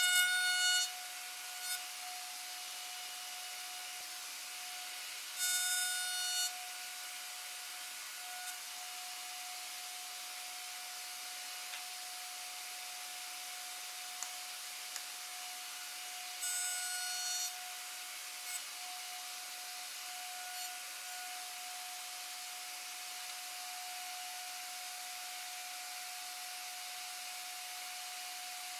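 Table-mounted router spinning a dovetail bit with a steady whine, louder and shriller three times for about a second each as the bit cuts wood being pushed past it: once at the start, about five seconds in, and about sixteen seconds in.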